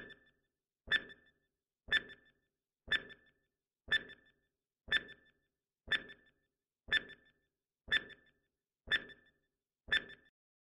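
Countdown timer sound effect: a short, sharp tick once a second, eleven in all, as a clock counts down from ten to zero.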